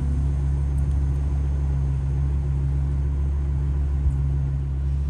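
Vehicle engine running with a steady low hum.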